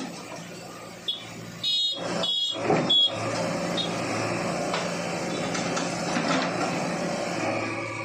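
JCB backhoe loader's diesel engine running steadily while it works, with a few short, high beeps between about one and four seconds in.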